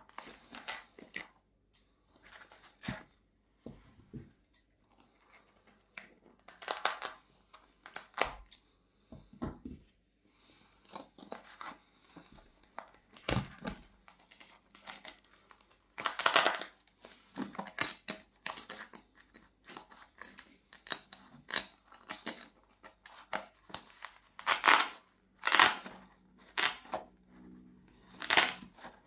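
Glued upper of a Onemix running shoe being torn away from its foam midsole by hand: irregular ripping and tearing, some rips louder and longer than others, with a couple of dull knocks from handling the shoe.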